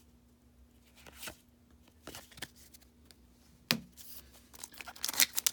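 Baseball trading cards being flipped and slid one by one in the hands: soft, scattered card strokes with one sharper snap about three and a half seconds in, and denser rustling near the end.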